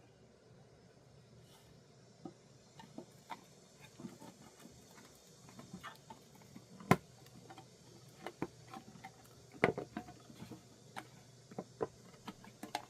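Scattered light clicks and taps of small objects being handled during unboxing, irregular and faint, with a sharper click about seven seconds in and a few more close together near ten seconds.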